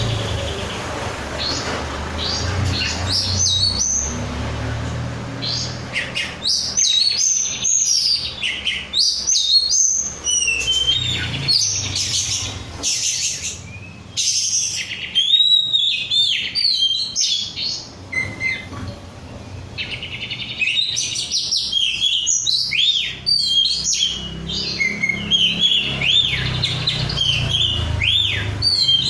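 Oriental magpie-robin (kacer) in full song: rapid, varied whistled and warbling phrases delivered in dense runs, with a short lull about two-thirds of the way through. A low hum runs underneath.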